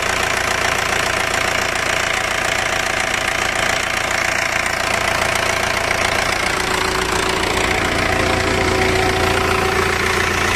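Caterpillar 3054C four-cylinder diesel engine idling steadily with a diesel clatter, running on its freshly refitted injection pump and injectors.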